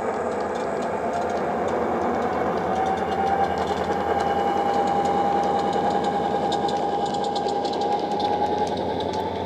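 Model Class 59 locomotive's DCC sound decoder playing an EMD two-stroke diesel engine sound through the model's small speaker as the loco runs, with a steady throb and a whine that rises slowly in pitch. Light ticking from the model's wheels on the track in the second half.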